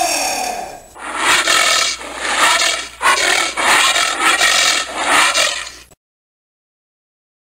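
Giant anteater vocalising: a pitched call that falls in pitch and fades in the first second, then a run of about seven harsh, rasping bursts. The sound cuts off abruptly to silence about six seconds in.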